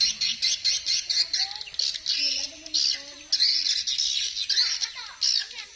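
Dense, rapidly pulsing high-pitched chorus of forest wildlife, with fainter low wavering sounds beneath.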